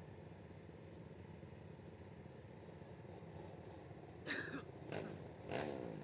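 Several racing quad (ATV) engines idling together in a low, steady rumble, with a few short louder sounds in the last two seconds.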